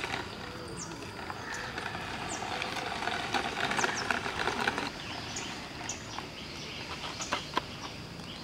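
Small electric gear motor of a cardboard RC tractor whirring as it tows a trolley over asphalt, with brief high bird chirps scattered over it.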